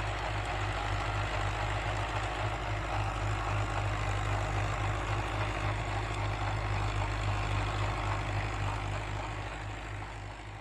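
Fiat 480 tractor's diesel engine running steadily under load as it pulls a tillage implement across a field, a continuous low drone that fades near the end.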